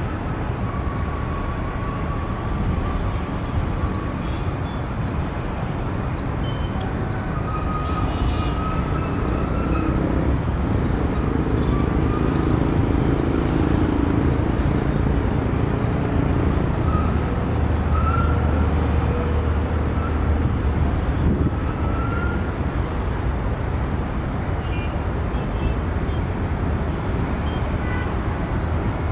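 Steady outdoor engine and traffic rumble that swells slightly in the middle, with a few short high tones over it.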